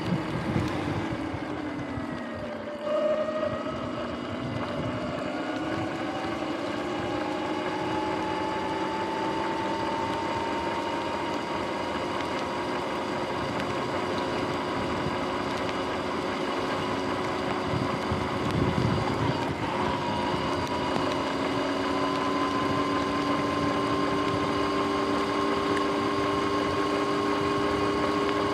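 Sur-Ron X electric dirt bike's motor and drivetrain whine, dropping in pitch as it slows about two to three seconds in, then rising steadily as the bike speeds up, over the hiss of tyres on wet pavement and wind on the microphone.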